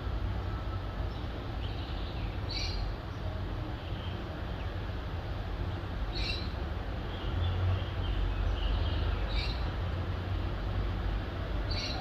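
Short, high bird calls repeating about every three seconds, with fainter chirps between them, over a steady low rumble of distant city traffic at dawn.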